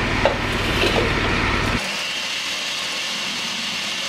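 Food processor motor running as it grinds chunks of roasted vegetables, then cutting off about two seconds in, leaving a fainter hiss. The processor is not chopping the vegetables finely.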